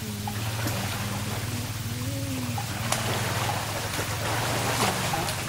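Elephant wading through a shallow stream, its legs sloshing and splashing the water with each step.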